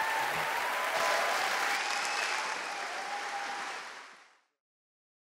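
Audience applauding at the end of a talk, fading out about four seconds in.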